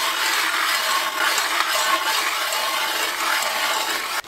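Hand-cranked ice auger boring into lake ice: its steel blades cutting the ice with a steady grinding scrape.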